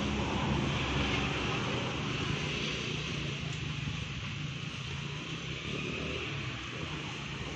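Steady background noise: a low engine hum under wind on the microphone, with no distinct knocks or calls.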